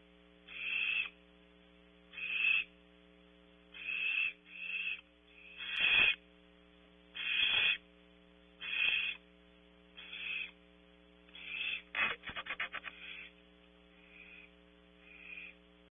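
Young barn owl giving repeated rasping screech-hisses of protest, each about half a second long and a second or so apart. A quick rattling run of clicks comes about twelve seconds in, and the last calls are fainter.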